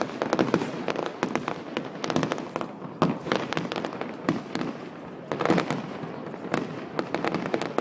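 Fireworks display going off: a rapid, irregular run of bangs and crackles, many overlapping, with a few louder reports standing out.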